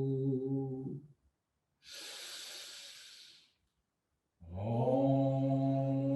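A man's voice holding a long, steady chanted tone that ends about a second in, then an audible breath drawn in, then a new sustained chanted tone starts near the middle and holds steady.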